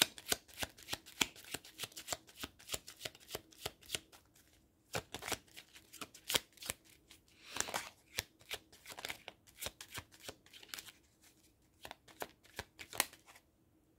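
A deck of oracle cards being shuffled by hand: a long run of quick card flicks, with a short pause a little over four seconds in and a longer swish of cards about halfway through.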